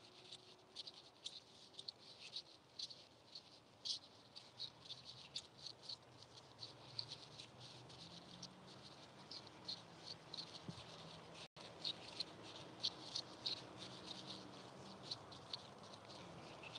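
Faint, rhythmic light ticking of a walk, about two to three a second: footsteps and a trotting dog's pawsteps or tags.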